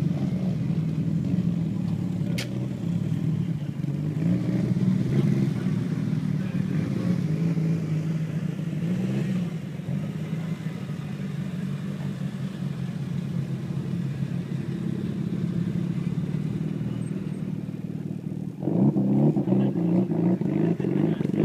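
Mitsubishi Lancer Evolution turbocharged four-cylinder engines running at low revs as the cars pull away over grass one after another, the engine note wavering up and down. There is a single sharp click about two seconds in. Near the end the engine note jumps louder as another Evo moves off.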